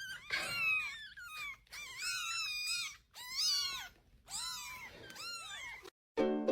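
Kitten mewing: a run of about six high-pitched mews that rise and fall, some short, one drawn out for about a second. Plucked ukulele music starts near the end.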